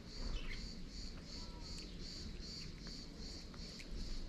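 A cat crunching dry kibble, heard as faint scattered clicks of chewing. Over it an insect chirps in a steady high-pitched pulse about twice a second, above a low background rumble.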